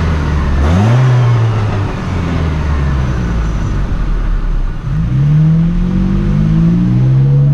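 Engine of a 2004 Chevy Colorado pickup with a five-speed manual, driving slowly. Its pitch rises about a second in and settles back, then rises again about five seconds in and falls off near the end as the driver eases off.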